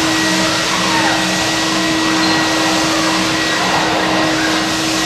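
Backpack vacuum cleaner running steadily: a continuous rush of air with a steady hum and a high, steady whine from its motor.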